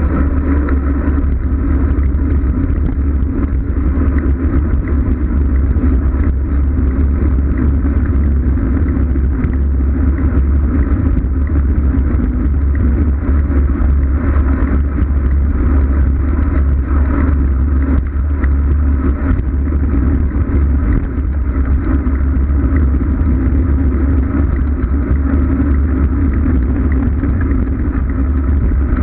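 Steady, loud wind rush and rumble on a bike-mounted GoPro's microphone during a fast road-bike descent, with road and tyre noise underneath.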